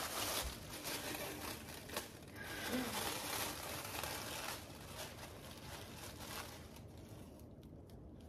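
Tissue paper crinkling and rustling as a painted piece is unwrapped and lifted out of its packing. The crackle dies down over the last second or two.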